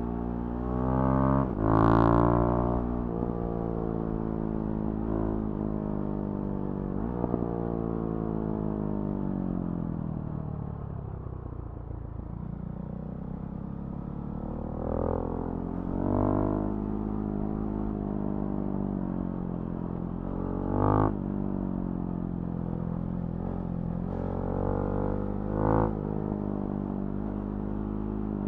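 Husqvarna Svartpilen 701's single-cylinder engine through a Remus NXT exhaust while riding. The revs climb sharply about two seconds in, then fall slowly over about ten seconds off the throttle, then build again. Several short, louder throttle bursts follow in the second half.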